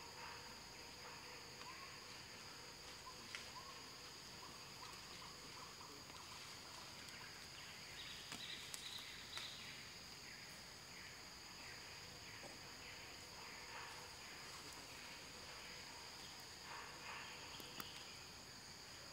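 Faint forest ambience: a steady high-pitched drone of insects, with a few short, faint chirps scattered through it, bunched together about eight seconds in and again near the end.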